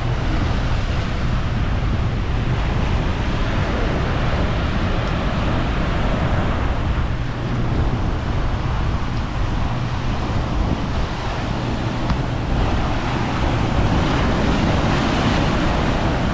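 Steady rushing noise of ocean surf and wind, with wind buffeting the microphone; it swells a few seconds in and again near the end.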